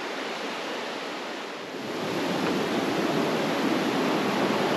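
Ellis River rushing in whitewater cascades over and between boulders: a steady rush of water that grows louder about two seconds in.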